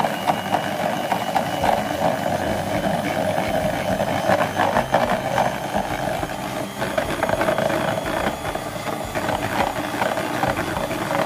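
Electric hand mixer running steadily, its beaters whipping egg whites toward a meringue, with frequent clicks of the beaters knocking against the bowl.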